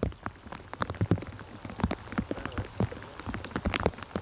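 Irregular patter of water drops and small plops, many each second, some deeper than others.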